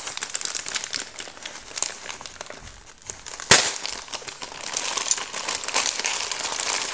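Plastic poly mailer bag crinkling and rustling as it is handled and worked open, with one sharp snap about three and a half seconds in.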